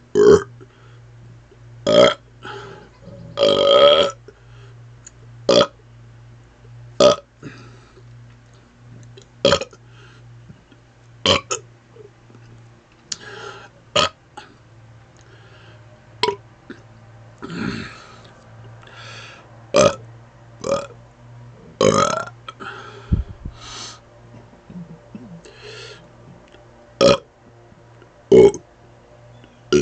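A man burping over and over without rest, some twenty deliberate burps about one every second or two. Most are short and a few are longer and drawn out.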